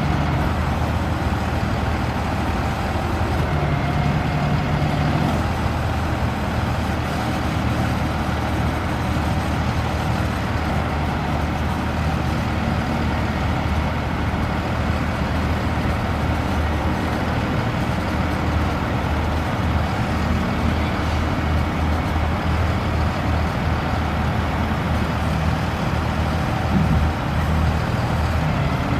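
Paccar PX7 inline-six diesel engine of a Kenworth T270 truck running steadily, a low even drone with no revving.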